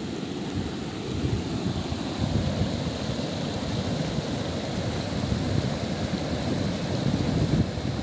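Muddy floodwater surging down a flash-flooded seasonal stream channel: a steady, deep rushing roar of churning water, a little louder from about a second in.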